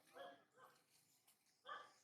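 Two faint, short barking calls from an animal, one just after the start and one near the end.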